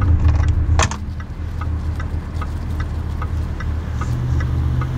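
Jaguar XJ R-Sport sedan running, a steady low engine and road hum that eases a little after the first second. A short click comes a little under a second in, and faint regular ticks come about two to three times a second.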